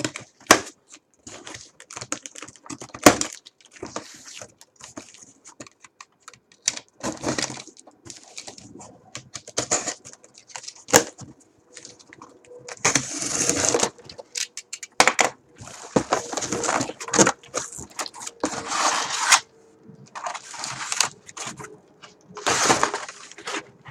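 A shipping parcel being opened by hand: cardboard and packing material rustling and ripping in irregular bursts, a few of them lasting a second or more, with scattered clicks and knocks as the box is handled.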